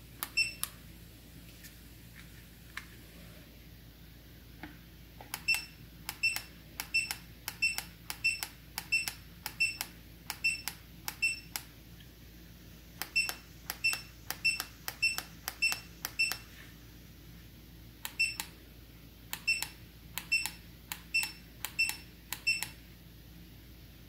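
Buttons pressed over and over on a smart ceiling fan's remote control. Each press gives a sharp click with a short high beep, in three runs of about two presses a second with pauses between.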